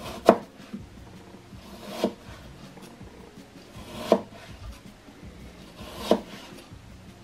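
Chef's knife slicing through peeled apple quarters and knocking down on a plastic cutting board, one slice about every two seconds, four in all.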